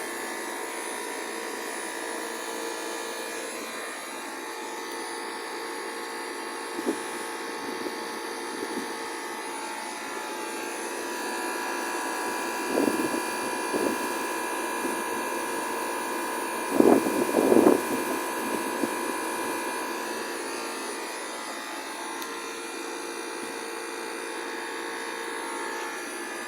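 Trane 5-ton inverter air conditioner starting up: a steady electric whine with several tones, which grows a little louder and gains a higher tone about eleven seconds in, as the inverter unit ramps up. A few brief thumps come in the middle, the loudest pair about two thirds of the way through.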